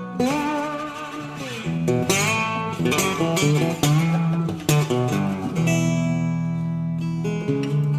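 Background music on guitar: plucked notes ring out and change every second or so.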